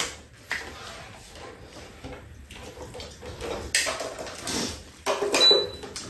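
Quiet mealtime sounds: a metal spoon knocking against bowls and dishes a few times, with one brief ringing clink near the end.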